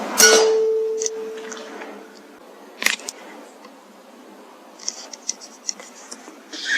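A sharp air rifle shot, followed by a clear metallic ring that holds one note for about two seconds. A single click comes about three seconds in, then a few light ticks near the end.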